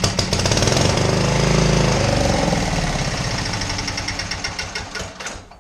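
27 HP Briggs & Stratton V-twin running on one cylinder, with a rapid string of firing pulses; it swells about a second and a half in, then slows, fades and dies about five seconds in. It quits because it is starved of fuel: its vacuum fuel line is off.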